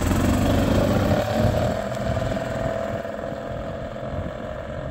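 Gas-powered 2003 Yamaha golf cart's small single-cylinder four-stroke engine running as the cart pulls away and drives off. Its steady drone grows fainter as it goes.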